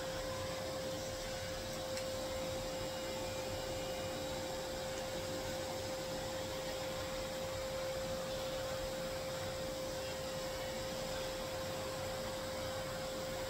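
INSE P20 pet grooming vacuum running with its electric clipper attachment in use on a dog: a steady whine over an even airy hiss.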